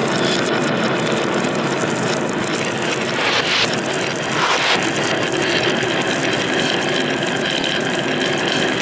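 Marbles rolling and clattering along a marble run's wave-slope track: a steady, dense rumble full of fine clicks.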